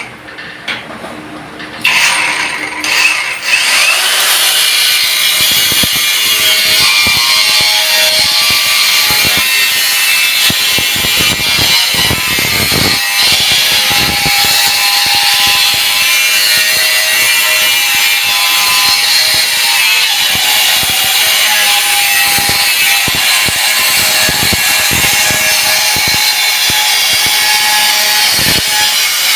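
TANZU cordless angle grinder running under load, its disc cutting into material with a steady high whine and grinding rasp. The sound grows loud about two seconds in and then holds steady.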